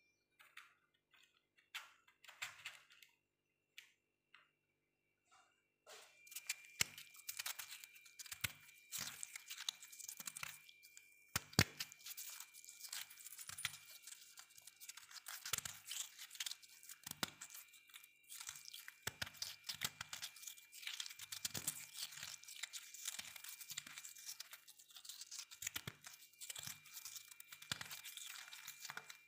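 Freezer frost crackling and crunching: a few sparse clicks at first, then dense, crisp crackling from about six seconds in.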